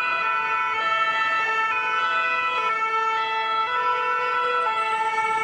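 Two-tone emergency vehicle siren, the French ambulance style, alternating between a high and a low note about once a second.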